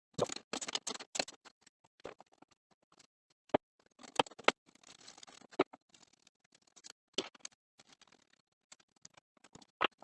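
Irregular metal clicks, taps and scrapes of hand-tool work on a Craftsman band saw's motor mount while the drive motor is being loosened to slacken the belt. The sharpest clicks come near the start and around the middle.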